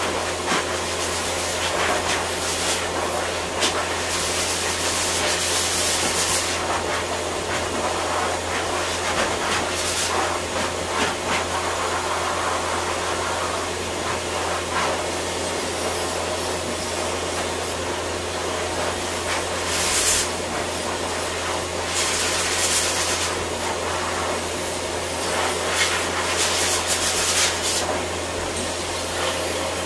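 Pet grooming dryer blowing with a steady low drone and a hiss that swells in brief surges several times.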